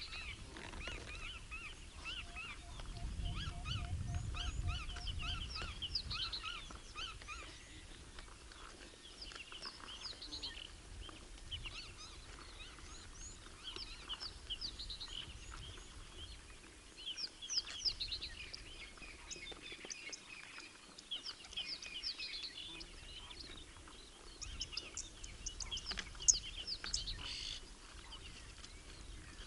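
Many wild birds chirping and calling at once, high-pitched trills and short notes throughout. A few seconds in, one bird gives a run of about eight evenly spaced lower notes over a low rumble, and a single sharp click near the end is the loudest moment.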